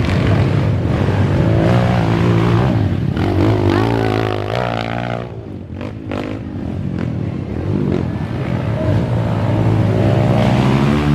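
Enduro dirt bike engines revving hard, the pitch rising and falling again and again, with a brief drop in level about halfway through.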